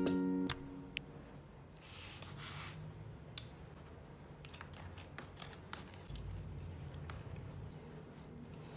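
Light clicks and scrapes of a wooden fork and spoon against paper food bowls, with a brief soft rustle near the start.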